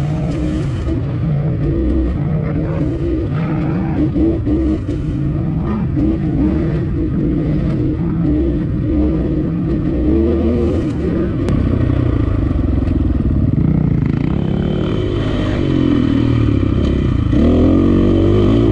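Dirt bike engine running on the trail, its revs rising and falling with the throttle, with clearer swells in pitch near the end.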